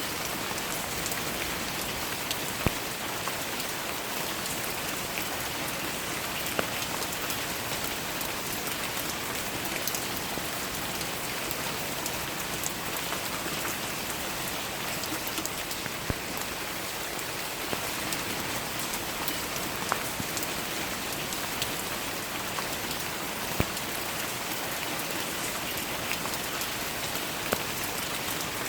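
Steady rain falling, an even hiss with scattered louder drops striking close by, a few of them standing out sharply.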